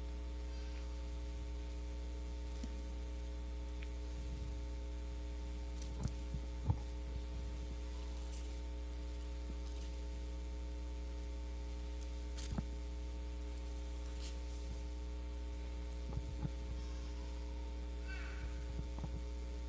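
Steady electrical mains hum through the microphone and sound system, with a few short faint clicks and rustles, most likely pages of a Bible being turned near the handheld microphone.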